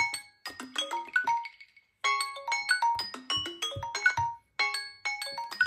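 Several Samsung smartphones' timer alarm tones ringing at once, overlapping quick runs of short bright chiming notes. The sound drops out briefly just before two seconds in, then the tones that are still ringing carry on.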